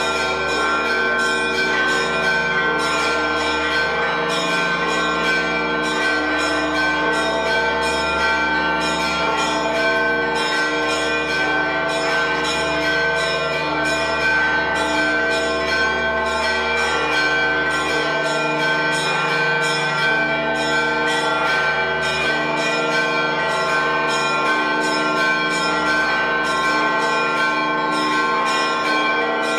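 Church bells ringing in a continuous peal, struck rapidly again and again, with several bells sounding together and their tones overlapping.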